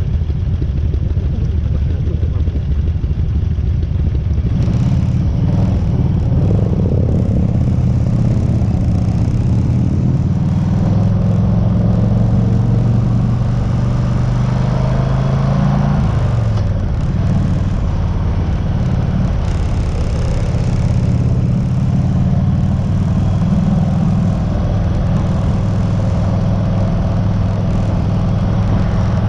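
1996 Harley-Davidson FLHTC's 1340 cc Evolution V-twin running, the motorcycle being checked for an abnormal noise. The engine note gets fuller about four and a half seconds in and drops briefly about sixteen seconds in.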